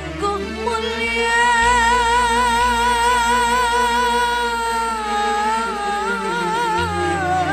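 A woman sings a kasidah gambus song, holding long notes with a wide, wavering vibrato, over sustained chords and bass notes from a Korg keyboard.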